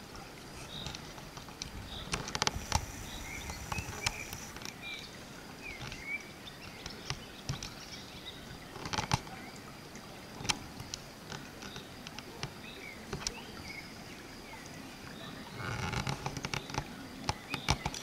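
Outdoor field ambience: a low steady rumble with scattered sharp clicks and knocks, most of them near the end, and faint short chirps now and then.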